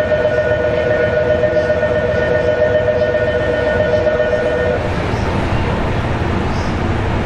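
Station platform departure bell ringing a steady, warbling two-tone electronic note that cuts off abruptly about five seconds in. Under it, a steady low hum from the E653 series train standing at the platform.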